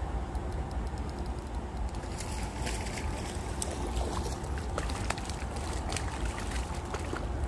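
Water trickling and gurgling, with a run of irregular splashes and clicks from about two seconds in until near the end as a hooked bass is brought in to the bank on a spinning rod. A steady low rumble runs underneath.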